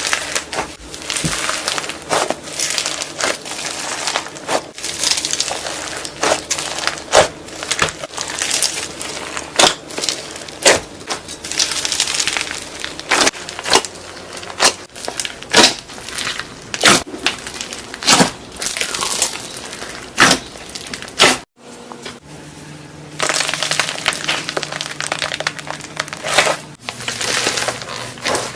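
Hands squeezing and poking crunchy slime: dense crackling with many sharp, irregular pops and snaps, broken by a brief gap about three quarters of the way through.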